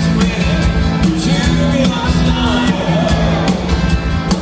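Turkish rock band playing live in a concert hall, recorded from within the audience: sustained bass and guitar notes over a steady drumbeat.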